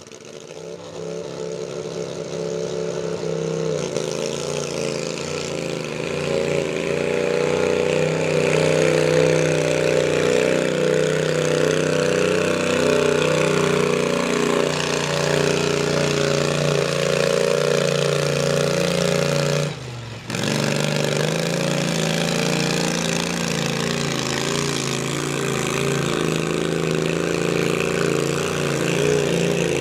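Twin-cylinder engine of a 25 hp class pulling garden tractor running hard and steady under load as it drags a weight-transfer sled. The sound fades in over the first few seconds and breaks off for a moment about two-thirds of the way through.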